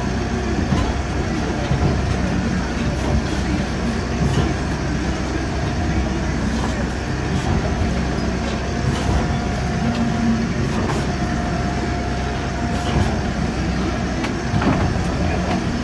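Inboard diesel engine of a Mitchell 31 Mk3 motor boat running steadily under way, heard from inside the wheelhouse, mixed with the rush of waves and spray against the hull and windows in a rough sea.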